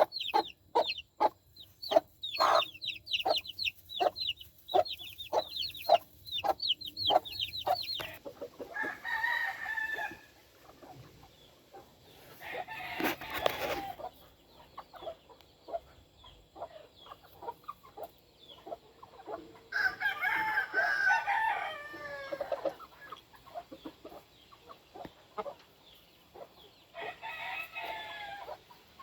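Game roosters crowing, four crows spaced out across the stretch, after a run of rapid, repeated clucking at the start.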